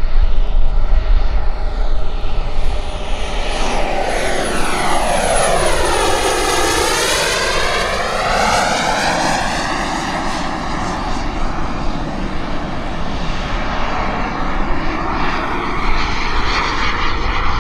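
BVM Renegade model jet's EvoJet 220 turbine during a fast pass. Its jet rush sweeps down in tone as the jet comes closest, about six or seven seconds in, then back up as it climbs away. A thin high turbine whine drops slightly in pitch as it goes by.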